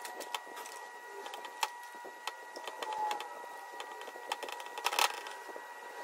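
Rubber valve cover gasket being handled and pressed into the groove of an engine valve cover on a workbench: scattered light clicks and taps, with a louder cluster about five seconds in, over a faint steady high hum.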